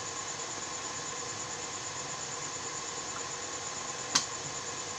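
Steady hiss with a faint, high-pitched whine on an electronics repair bench, and one sharp click about four seconds in.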